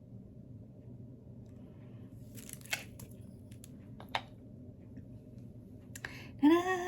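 Small handling noises at a worktable over a low room hum: a brief rustle and two sharp clicks in the middle, another click about six seconds in. Near the end a woman's voice starts a long held sung note.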